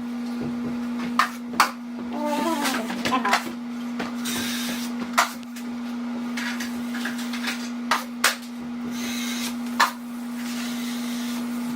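Drywall taping knife working joint compound, with sharp metallic taps and clicks every second or two and two stretches of scraping, over a steady electrical hum.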